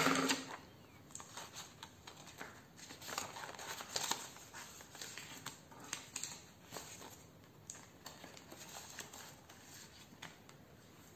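Clear plastic zip pouches of a cash-envelope ring binder crinkling and rustling as they are flipped and handled, with banknotes among them. The sound is a soft, irregular run of rustles and small clicks.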